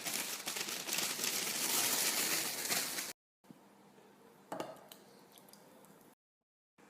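Brownie ingredients being tipped into a pan: a steady rustling hiss for about three seconds that cuts off abruptly, followed by faint handling sounds with one soft knock.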